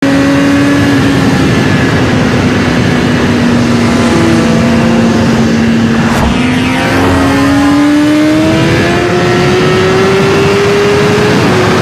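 Designed mechanical sound effect: a loud, steady engine-like drone whose pitch climbs slowly through the second half, as if a machine were winding up.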